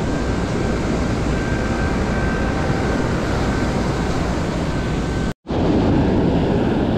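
Wind buffeting the microphone over the steady wash of surf on the beach, with a brief total dropout about five seconds in.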